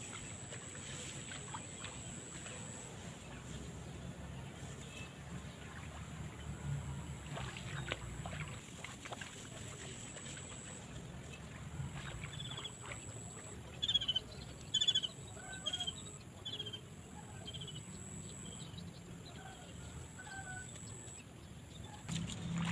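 Outdoor field ambience with a bird calling in a run of short, repeated chirps through the second half, over a low rustle and a faint steady high-pitched whine.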